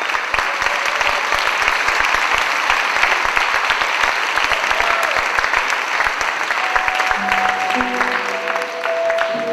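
Audience applauding steadily. About seven seconds in, music starts under the clapping with a few long held notes.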